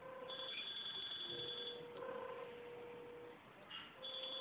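Electronic telephone ring of an incoming VoIP call: a high two-tone ring sounds for about a second and a half, stops, and starts again near the end. A lower steady tone sounds in the gap.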